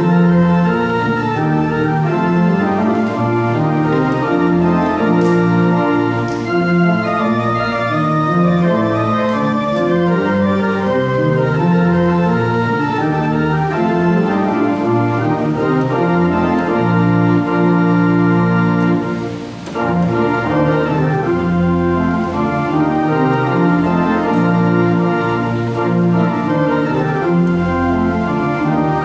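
Organ playing in sustained, changing chords, with a brief break in the sound about two-thirds of the way through before it carries on.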